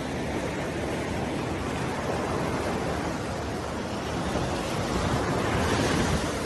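Steady wash of sea surf and wind on an open beach, swelling louder about five seconds in.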